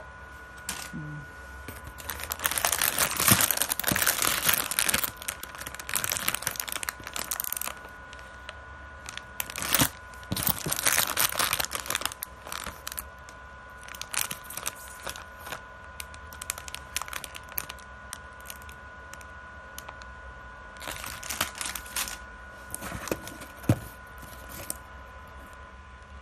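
Crinkly plastic snack packaging being handled and turned over, crackling in bursts with quiet pauses between, with a few sharp clicks and a faint steady high whine underneath.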